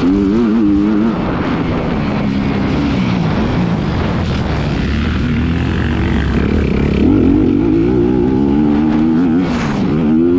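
Single-cylinder four-stroke engine of a 2018 Honda CRF250R motocross bike being ridden hard, its pitch climbing and dropping over and over with throttle and gear changes.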